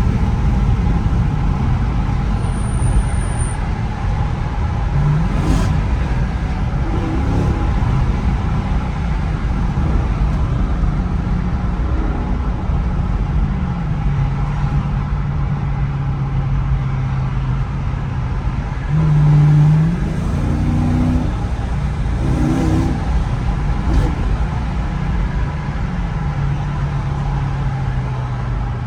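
2014 Dodge Charger R/T's 5.7-litre HEMI V8 running under way, its engine note holding steady between several shifts in pitch as the gears change. A brief, louder rise in revs comes about two-thirds of the way through.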